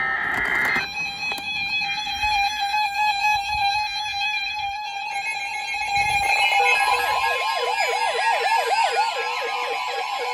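Several NOAA weather radios sounding their alert alarms for an incoming tornado warning: steady and pulsing electronic tones, joined about six seconds in by a fast warbling, siren-like alarm.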